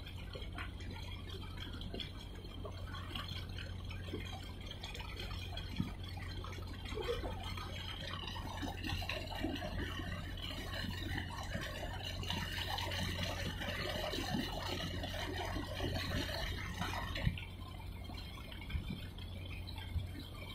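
Harbour water lapping and splashing at the water's edge, over a steady low hum. The splashing grows busier about a third of the way in and eases off near the end.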